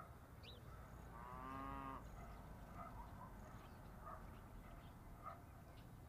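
A cow mooing once, a drawn-out call of just under a second beginning about a second in. Faint short chirps come and go against a low countryside background.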